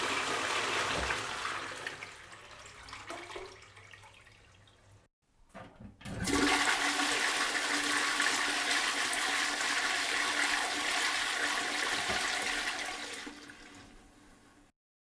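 Toilet flushing: rushing water that fades away over the first few seconds, then after a short pause with a couple of small splashes, a second stretch of rushing water starts about six seconds in, carries on with a faint whistling tone in it for about seven seconds and fades out.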